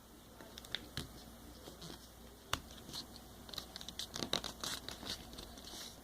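Square sheet of paper being folded and creased by hand: faint crinkling and scratching, with a sharp tick about two and a half seconds in and a denser run of crinkles in the second half.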